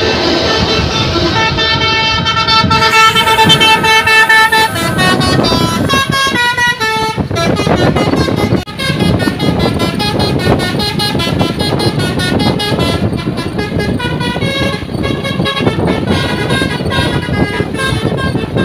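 Multi-tone 'telolet' air horn on an intercity bus, playing a melody of stepping notes over steady low noise. The notes are clearest in the first seven seconds, then come more broken.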